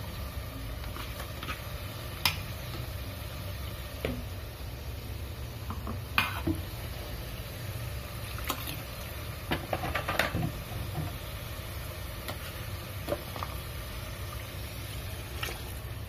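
Ground onion and ginger-garlic-fennel paste frying in hot oil in a metal pot, bubbling with scattered pops and crackles over a steady low hum.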